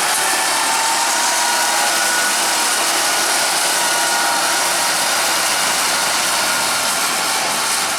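Farm machine engine running steadily and loudly, with a faint whine that drifts slightly in pitch.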